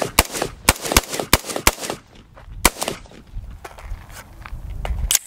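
Bushmaster MOE AR-15 in 5.56 firing a quick string of semi-automatic shots, about four a second for the first two seconds, then one last shot after a short pause. A few faint clicks follow.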